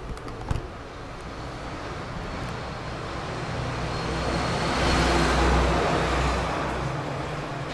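A road vehicle passing by, its rushing noise and low rumble swelling to a peak about five seconds in and then fading away. A short knock sounds about half a second in.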